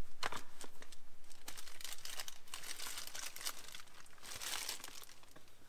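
Soft drawstring goggle bag rustling and crinkling as hands work a pair of snowmobile goggles out of it. The rustling comes in uneven bursts, sharpest just after the start and again about four and a half seconds in.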